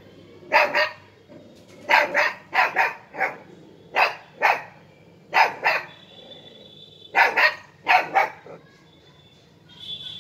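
A Siberian husky puppy barking in short, sharp bursts of two or three, repeated every second or two, with a brief pause a little past halfway.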